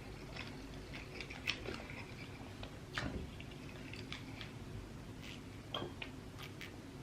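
Quiet chewing and mouth sounds of someone eating seafood, with a few scattered soft clicks and snaps, the most distinct about three seconds in.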